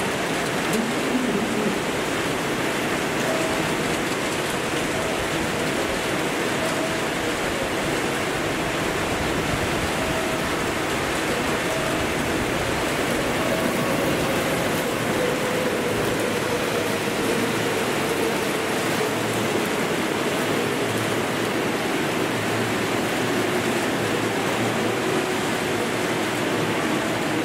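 Torrential cloudburst rain pouring steadily, with an electric passenger train running through the station under it. A faint tone slowly falls in pitch through the middle of the passage.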